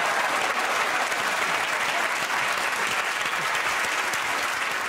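Studio audience applauding steadily, a dense even clatter of many hands clapping.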